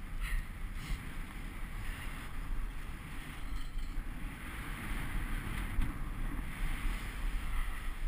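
Wind buffeting the camera's microphone, and skis hissing over groomed snow, during a steady downhill run.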